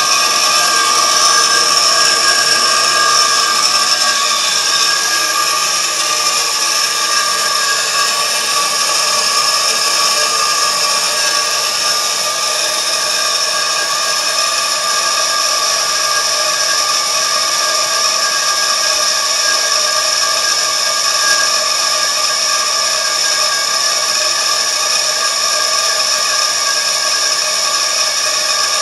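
Bauer high-pressure air compressor running steadily, a loud even machine sound with several steady whining tones and a hiss. The fill pressure is climbing past about 4,000 psi.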